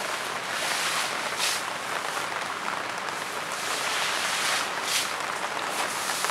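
Steady rain falling through tree foliage, an even hiss with brief louder swells about a second and a half in and again near five seconds.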